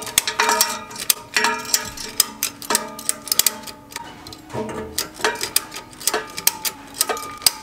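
A ratchet strap's ratchet clicking in uneven bursts as it is cranked tight, drawing the downpipe toward the exhaust pipe, over background music with sustained notes.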